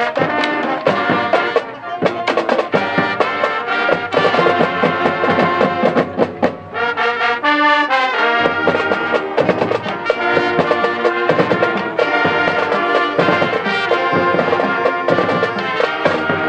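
High school marching band playing its field show: brass and marching percussion together, with the sound thinning briefly about seven seconds in to a few held notes before the full band comes back in.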